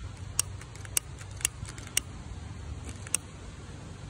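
Trigger of a long-nosed grill lighter clicking, about five sharp clicks roughly every half second with a longer pause before the last, as it is held to a firework fuse to light it.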